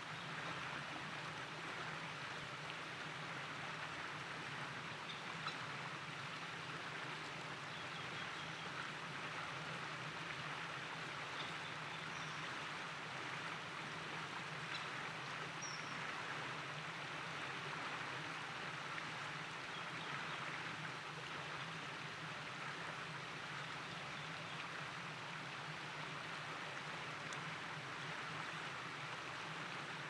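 Steady rushing of a flowing stream, with a low constant hum beneath it and a few faint, short high calls.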